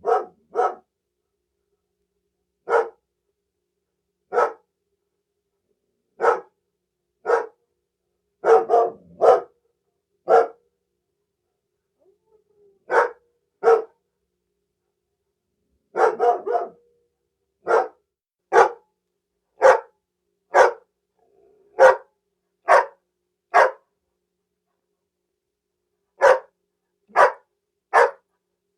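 A single dog barking loudly in short separate barks, singly and in quick pairs or runs of three, with silent gaps of up to two seconds between them.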